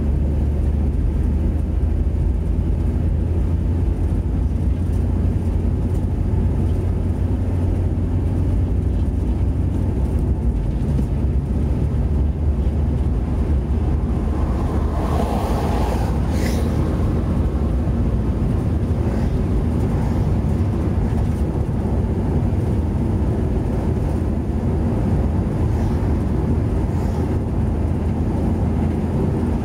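Engine and road noise inside a car's cabin while driving at speed: a steady low drone. About halfway through, a brief rushing sound rises over it.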